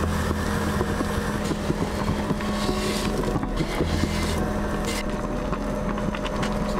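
A small motor drones steadily with a constant low hum, with light clicks and knocks over it.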